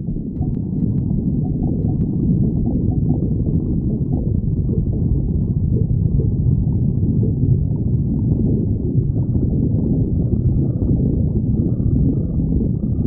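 A person's stomach growling, a hungry empty stomach: a continuous low gurgling rumble that keeps going without a break.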